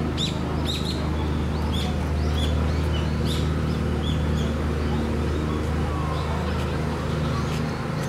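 Construction machinery's engine running steadily with a low hum, while small birds chirp repeatedly over it, mostly in the first half.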